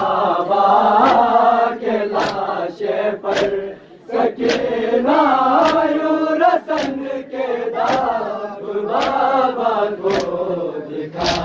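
A crowd of men chanting a noha (Shia lament) in unison. Hand-on-chest strikes of matam keep time, about one a second.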